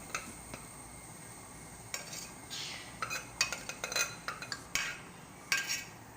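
A spoon clinking and scraping against a kadai (cheenachatti) as cooked green gram is added and stirred into warm grated coconut. A string of sharp clinks and short scrapes starts about two seconds in.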